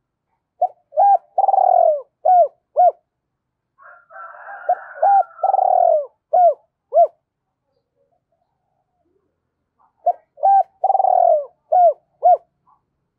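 Spotted dove cooing: three phrases a few seconds apart, each a couple of short coos, one longer drawn-out coo, then two short coos.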